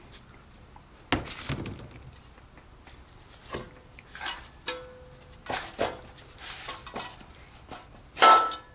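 Metal tools and engine parts clinking and clattering as they are handled on a workbench, in short separate knocks, with a loud ringing metallic clank near the end.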